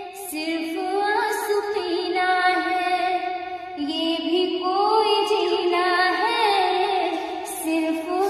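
Sad ringtone music: a slow melody with a female voice singing, its notes held and sliding between pitches.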